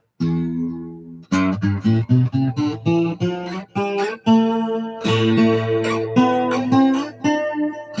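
Acoustic guitar being played: a chord rings out, then from about a second in a steady run of picked notes and chords.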